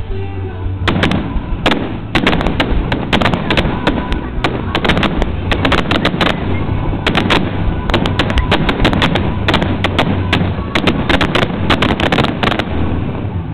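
Aerial fireworks shells bursting in a rapid barrage, several sharp bangs and cracks a second. The barrage starts about a second in and stops about a second before the end.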